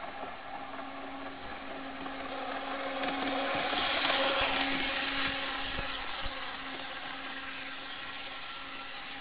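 HO scale model Brilliner trolley running at full speed, its small electric motor whirring with a steady hum and its wheels clicking on the track. It gets louder to about four seconds in, then eases off.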